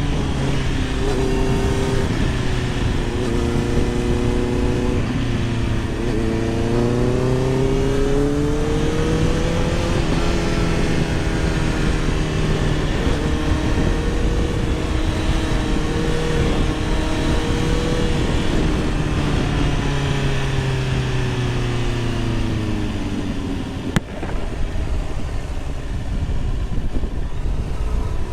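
Motorcycle riding at road speed, heard through a helmet microphone: wind rushing over the helmet, with the engine note rising and falling with the throttle. Near the end the engine note drops away, followed by a single sharp click.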